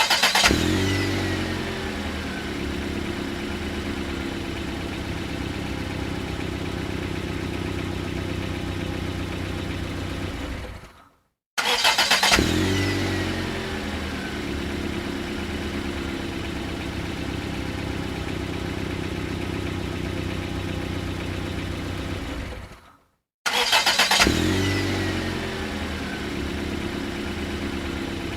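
Car engine started three times in a row. Each time it catches with a loud burst and a short falling whine, settles into a steady idle, and fades out after about ten seconds.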